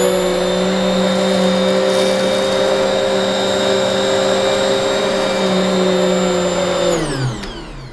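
Hoover UH75100 High Performance Swivel bagless upright vacuum switched on and running steadily at full power over carpet. About seven seconds in it is switched off and its motor whine falls in pitch as it spins down.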